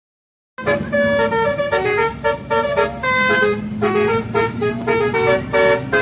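Telolet bus horn, a multi-tone musical horn on a bus, playing a quick melody of short notes that jump between pitches, starting suddenly about half a second in and heard from inside the bus.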